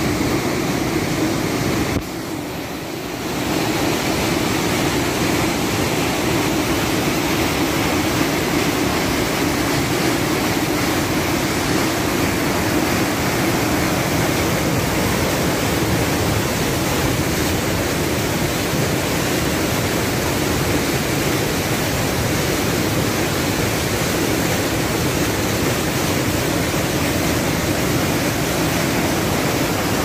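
Canal water pouring over a drop and churning into white foam: a steady, loud rushing. It dips briefly about two seconds in, then carries on unchanged.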